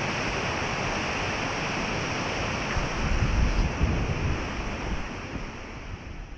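Steady rushing wind, with gusts buffeting the microphone about three seconds in, fading out near the end.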